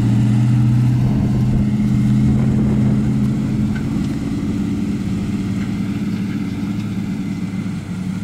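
Engine of a homemade monster truck/boat idling steadily with a low, even hum, a little quieter from about four seconds in.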